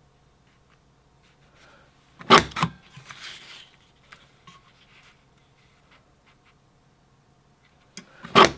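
Creative Memories Floral Peaks decorative border punch pressed down through patterned paper twice, each a sharp quick double clack, the second about six seconds after the first. Between the punches there is faint paper rustling as the sheet is slid along to line up the design.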